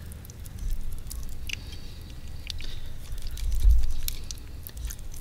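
Wet, squishy sounds of a knife working raw chicken meat and fat loose from the wing bone, with small scattered clicks and a dull thump about three and a half seconds in.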